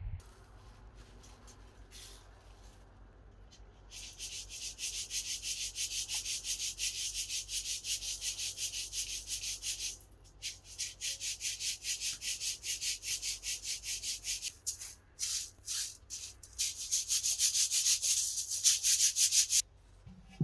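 Quick, rhythmic scraping strokes, about four a second, in three runs broken by short pauses.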